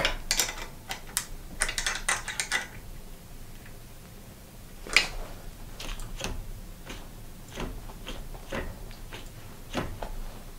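A wrench working the cable anchor nut on a bicycle V-brake: a quick run of light metallic clicks in the first two to three seconds as the nut is tightened. Scattered single clicks follow, roughly one every half second to a second.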